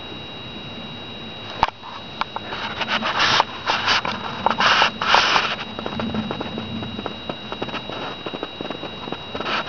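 Close crackling, scraping and rustling that starts about two seconds in and comes in short irregular bursts, as a woodchuck noses at and takes leaves held out by hand right beside the microphone.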